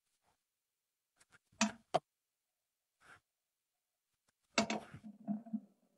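Quiet handling noises from working pipe dope onto a taped copper male adapter: two sharp clicks a little under halfway through, then a short uneven scuffling sound near the end.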